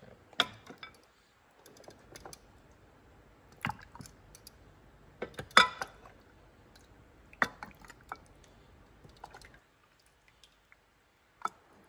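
Scattered sharp clicks and taps, about half a dozen, the loudest a little past halfway, over faint room noise.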